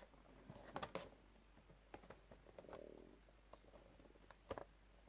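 Near silence with a few faint taps and rustles from a boxed Funko Pop vinyl figure being handled, about a second in and again near the end.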